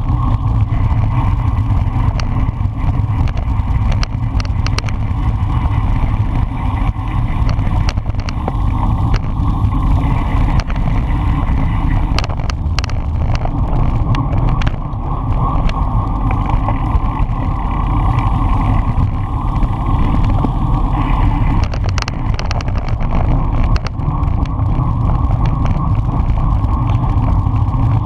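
Wind rushing over a bicycle-mounted camera's microphone while the bike rolls along at race speed, with a steady low rumble of tyres on the road and scattered sharp clicks and knocks from the bike.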